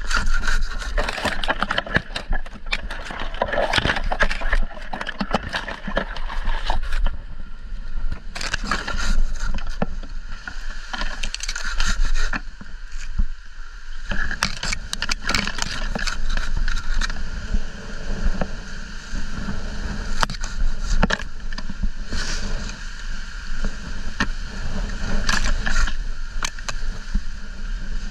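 Hand pruning saw cutting through palm frond stems in runs of repeated rasping strokes, with a short pause about halfway. Wind buffets the microphone underneath as a steady low rumble.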